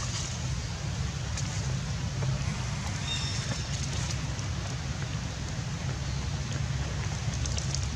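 Steady outdoor background noise with a low wind rumble on the microphone, and a few faint high chirps about three seconds in.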